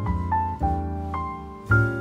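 Background music: soft solo piano, a melody stepping down over held chords, with a new chord struck near the end.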